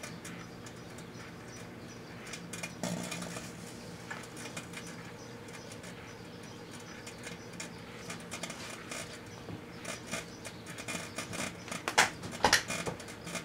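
Proctor-Silex microwave oven running with a steady hum while the rusty 5 1/4-inch floppy disk drive inside sparks and starts to burn: scattered crackles and snaps grow more frequent, with two loud pops about twelve seconds in.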